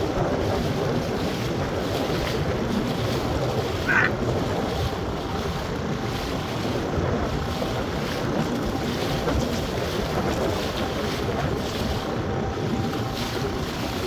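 Strong wind buffeting the microphone over choppy lake water, with waves splashing and slapping against the hull of a small Pelican Bass Raider 10E fishing boat as it moves along. A brief high chirp comes about four seconds in.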